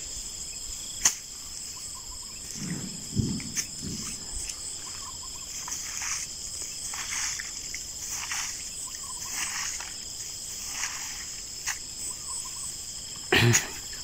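A steady high insect drone, with irregular soft rustling and swishing as rice seedlings are pulled up by hand from the wet nursery bed.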